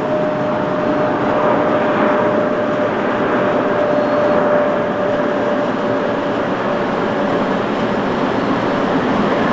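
A departing Boeing 747-8 freighter's four GEnx jet engines: a steady, loud roar with one whine held at a near-constant pitch running through it.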